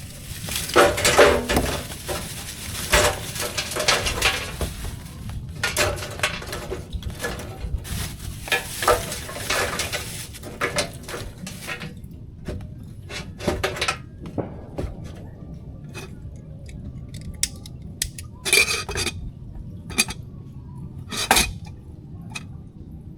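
Metal cookware clattering: a utensil scraping and clinking against a pot, busy and rapid for about the first half, then a few separate clinks with two louder ones near the end.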